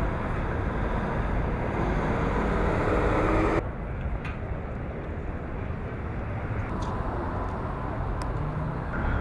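Steady vehicle engine noise whose tone rises about two to three seconds in, cut off abruptly by an edit, then quieter steady outdoor background noise with a few faint clicks.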